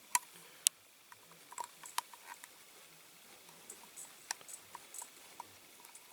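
Small sharp clicks and light scratching from a slightly twisted pin being worked through a hole in a diecast model's metal body, with two louder clicks near the start.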